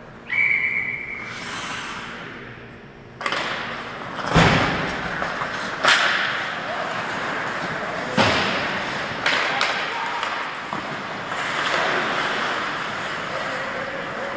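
Ice hockey play: skates scraping the ice and sticks and puck clacking, with several sharp knocks of puck, sticks and bodies against the boards and glass.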